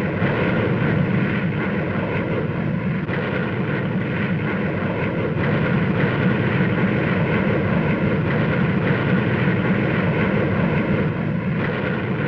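Steady jet aircraft engine noise of a plane in flight, holding level without rises or falls.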